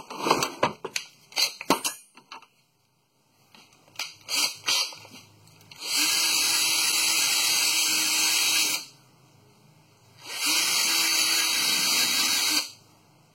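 Metal clinks, then a hand-held power tool runs twice, about three seconds and then about two seconds, with a steady hum, cleaning old glue off a brake part.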